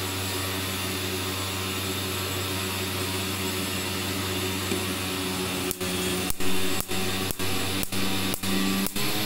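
Steady machine hum with a low drone running under it. From a little past halfway it is broken by regular clicks or dropouts, about two a second.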